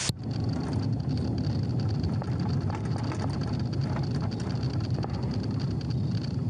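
Steady road and engine rumble of a police car driving at speed in a pursuit, picked up inside the cruiser, with a faint steady high-pitched whine above it.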